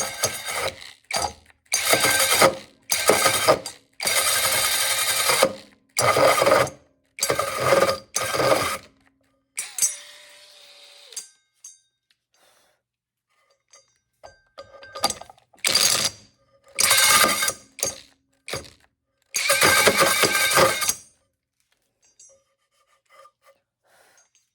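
Mellif cordless drill driving a 5-inch hole saw through a slow cut in short trigger bursts, each lasting about a second with brief pauses between. There is a quieter whir around the middle, a few seconds' pause, then more cutting bursts before it stops well before the end.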